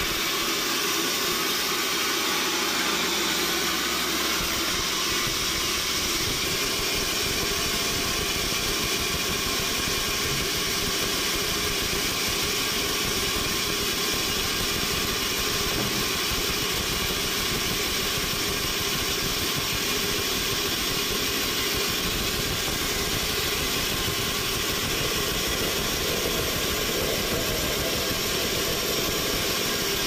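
Large vertical band sawmill running steadily as its blade saws lengthwise through a big log fed along the carriage.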